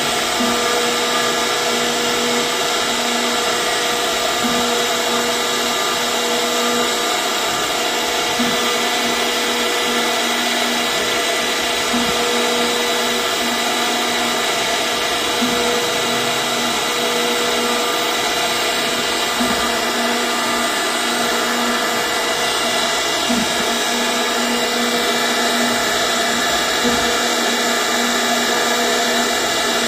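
CNC router spindle running steadily at high speed while cutting wood, a constant whine with overtones and a few faint ticks.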